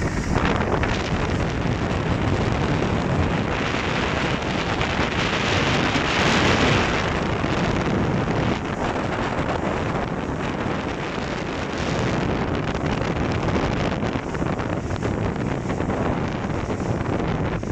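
Wind buffeting the microphone over the rushing hiss of water along the hull of a Grand Soleil 39 sailing yacht moving fast under sail through choppy sea, with a stronger surge of hiss a few seconds in.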